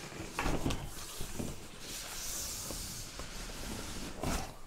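Cardboard oven box being handled. There are a few knocks in the first second, then a longer scraping hiss of cardboard rubbing on cardboard through the middle.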